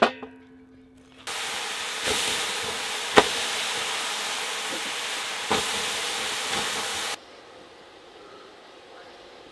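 Tongs clank against a metal basin with a short ring. Then water thrown on hot stones hisses into steam for about six seconds, with a few crackles, and stops abruptly.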